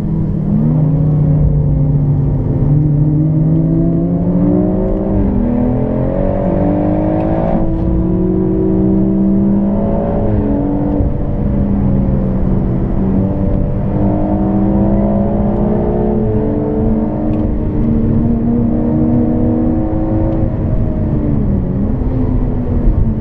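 BMW M140i's stage-1 tuned, turbocharged 3.0-litre straight-six pulling hard, heard from inside the cabin: the engine note climbs under acceleration and drops back several times, with road and tyre noise underneath.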